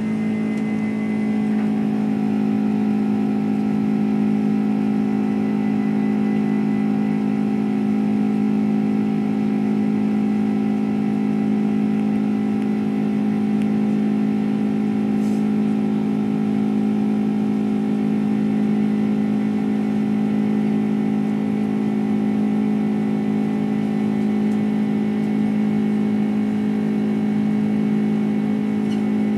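Boeing 767 jet engines, heard from inside the cabin, running at high takeoff thrust with a steady hum and whine after spooling up just as the sound begins.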